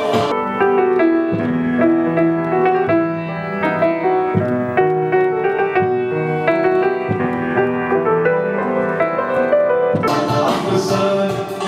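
Grand piano playing a solo passage of melody notes over chords. About ten seconds in, more instruments come back in with it.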